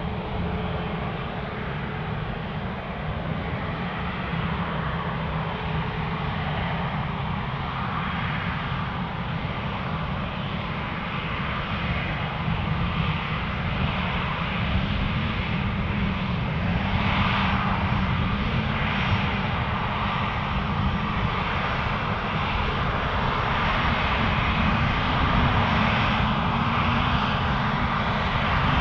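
Airbus A350 jet engines running, a steady rumble with a broad hiss that slowly grows louder.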